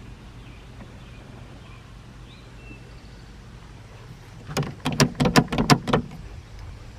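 Someone working the door handle and latch of a BMW E30, a quick run of about eight clacks over a second and a half, starting about four and a half seconds in. A faint steady low hum sits underneath.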